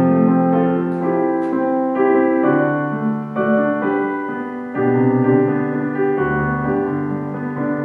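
Roland FP-80 digital piano playing a slow piece, with held notes and chords changing every second or so.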